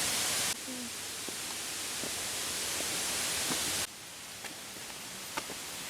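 Steady rushing of a waterfall, a dense even hiss that steps down in level twice, with a few faint ticks.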